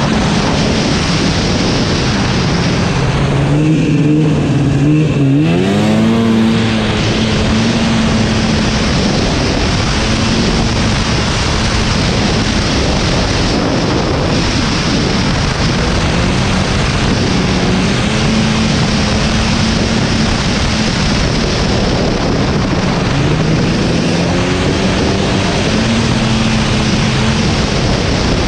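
Snowmobile engine running on the move over a steady rushing noise; the engine note drops, then rises sharply about five seconds in, and climbs again near the end as the sled speeds up.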